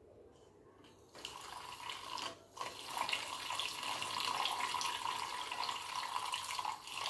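Small handheld battery frother whirring as it whisks liquid in a plastic measuring jug, mixing so the musk dissolves into the perfume liquid. It starts about a second in, drops out briefly, then runs on steadily.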